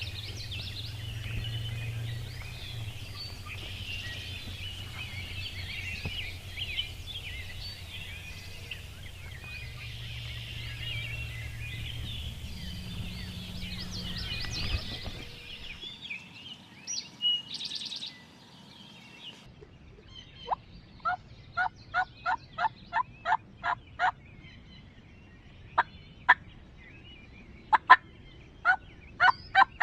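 Songbirds chattering over a low steady hum for about the first half. Midway the sound changes abruptly, and then a wild turkey yelps in runs of evenly spaced notes, about three a second.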